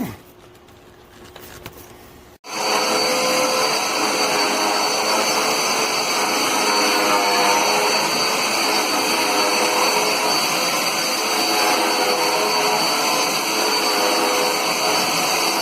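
Dirt Devil Endura Reach bagless upright vacuum cleaner running, a loud steady motor whine over rushing air. It starts abruptly about two and a half seconds in, after a short quiet stretch.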